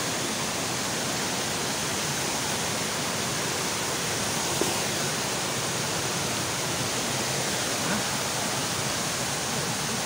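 Waterfall and rocky stream rushing steadily, a continuous even hiss of falling and running water.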